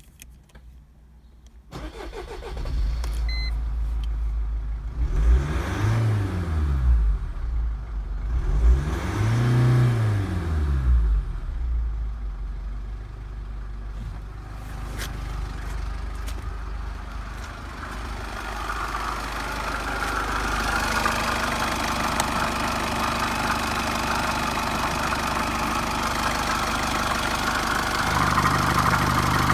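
Mercedes OM611 2.2-litre four-cylinder common-rail diesel starting about two seconds in. It is revved up and back down twice, then settles to a steady idle. Near the end it is heard close up from the open engine bay.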